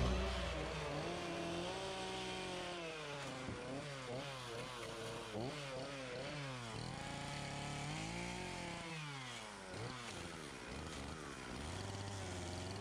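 Echo two-stroke chainsaw with a carving bar cutting into a wood block, its engine pitch rising and falling repeatedly as the throttle and the load of the cut change, dropping back lower for a moment about two-thirds of the way through.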